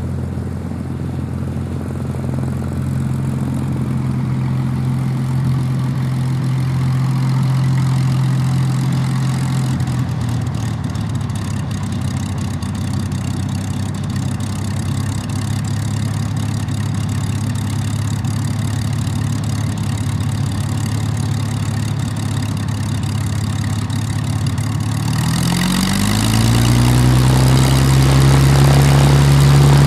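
Rolls-Royce Merlin V12 engines of a Hawker Hurricane and a Supermarine Spitfire idling steadily. Near the end an engine is throttled up, its pitch rising and the sound getting louder.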